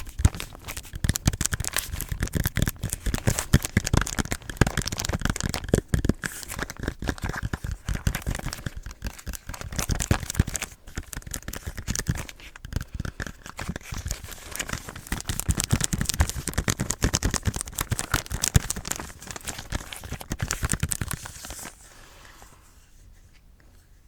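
Close-miked ASMR tapping: fast, continuous clicking taps, dense and uneven, that stop shortly before the end.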